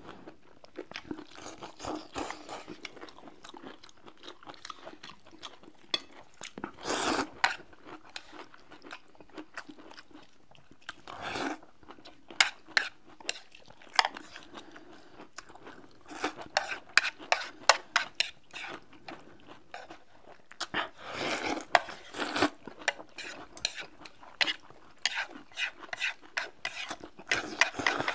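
Two people eating stir-fried noodles: slurping noodles and chewing, with many sharp wet mouth clicks and a few longer slurps.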